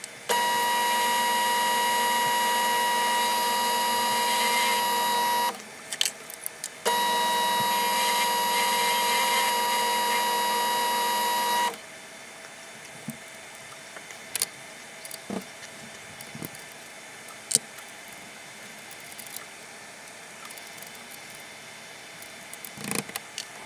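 Metal lathe drilling into a mild steel block with a twist drill held in a chuck on the spindle: a steady, even-pitched whine in two runs of about five seconds with a brief pause between. After the second run it stops, and scattered light metallic clicks and taps follow as the chuck is handled.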